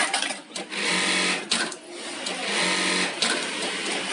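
Rixiong electronic bartack sewing machine stitching bartacks into denim jeans: about three or four rapid stitching cycles, each roughly a second long, with short pauses between them.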